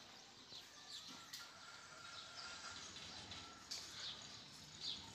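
Faint bird chirps: a few short, high calls that sweep downward, scattered over quiet background noise.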